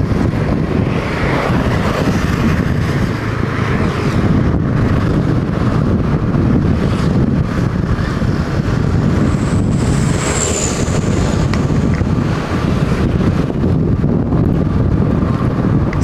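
Wind buffeting the microphone on a moving motorcycle, a steady loud rush with the engine and road noise underneath.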